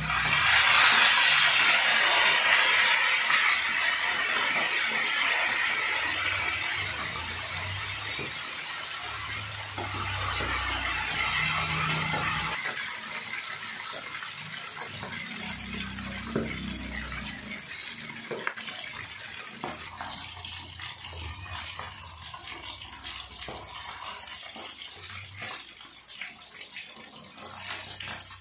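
Pre-cooked chicken pieces deep-frying in hot oil in an aluminium wok: a loud burst of sizzling as a piece goes into the oil near the start, then steady sizzling that slowly dies down. Occasional light clicks sound through it.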